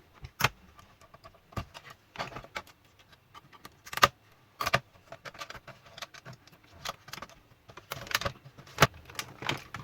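Plastic casing and metal hinge parts of a Toshiba Satellite L655 laptop being pried open and handled: irregular clicks, taps and short scrapes, the loudest about half a second in, at about four seconds and near the end.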